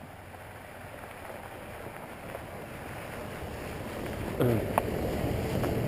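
A vehicle approaching on the road, its tyre and engine noise growing steadily louder as it comes close. About four and a half seconds in, a short sound falls in pitch, followed by a click.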